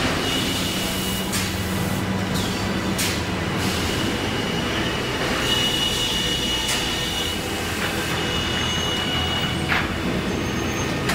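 Comact sawmill processing line running: a steady mechanical rumble with a thin, high squeal, stronger around the middle, and a handful of sharp knocks from the machinery.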